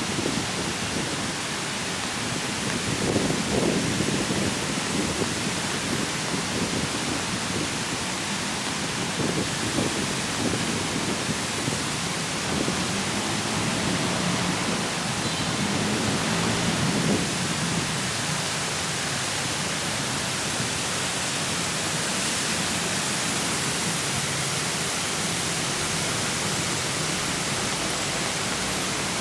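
Heavy rain falling steadily, a constant hiss. Lower sounds come and go through the first half, then only the even rain noise remains.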